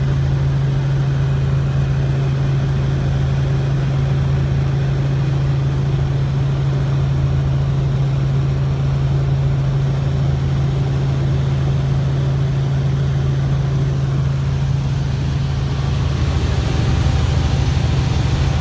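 Helicopter in flight, heard from inside the cabin: a steady deep hum and drone from the rotor and engine, getting a little louder near the end.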